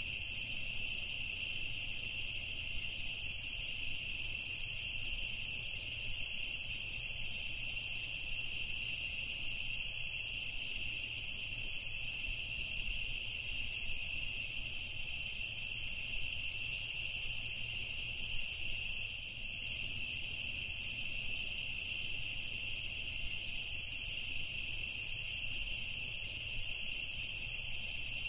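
Crickets and other insects trilling together in a steady night chorus: a continuous high-pitched shrilling in several layers.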